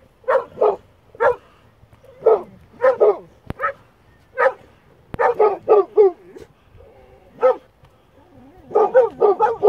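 Boxer dog barking repeatedly at cattle across a gate, short sharp barks in irregular runs, some coming in quick doubles and triples.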